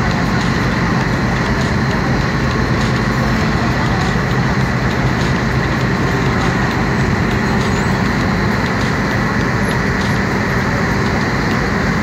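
A boat's engine running steadily, with the wake's churning water heard on board.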